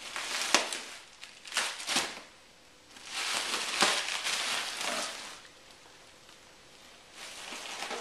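Green plastic bubble-wrap packing crinkling and rustling as it is handled and pulled out of a cardboard box. It comes in several bouts, the longest in the middle, with a few sharp crackles.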